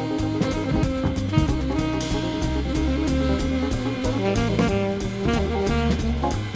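Jazz band music: a horn melody, probably saxophone, over a drum kit keeping a steady beat.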